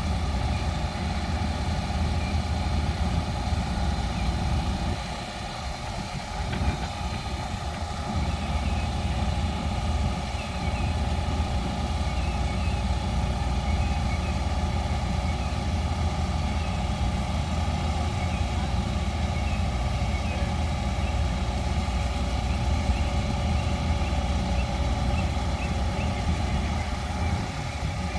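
Excavator's diesel engine running steadily, with a slight dip in level about five seconds in.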